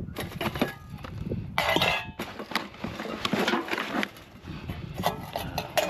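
Household junk being rummaged through by hand: crockery and metal kitchen utensils knocking and clinking together in a string of irregular clatters, with a louder noisy burst about one and a half seconds in.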